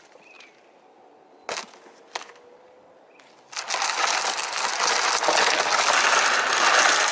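A plastic Jet Sled loaded with ice-fishing gear being dragged by its rope over gritty asphalt: a loud, steady scraping rush that starts about halfway through. Before it, two sharp knocks.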